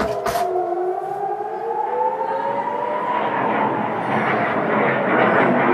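Air-raid siren wailing, its pitch sliding down and then back up. From about halfway through, a rushing roar builds beneath it and grows louder.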